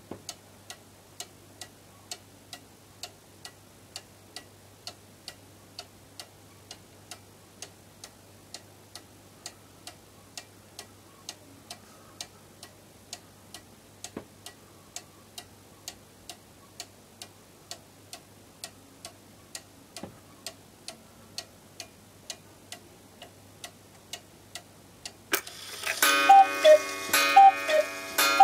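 Chalet-style cuckoo clock ticking steadily, about two ticks a second, from its pendulum escapement. Near the end, as the hands reach the hour, its music box starts playing a tune, much louder than the ticking.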